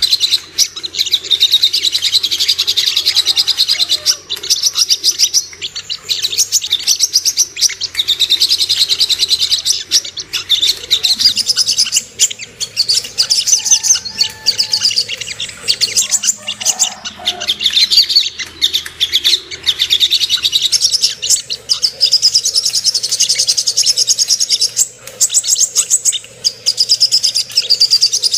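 Sogon (sogok ontong) bird singing long runs of rapid, high chirping trills with short breaks between phrases. This is the lure song used to rouse captive birds of its kind into singing.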